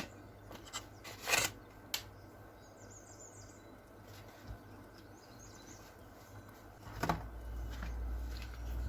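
A few light taps and rustles of objects being handled in the first two seconds, with faint bird chirps in the background and a low hum coming in near the end.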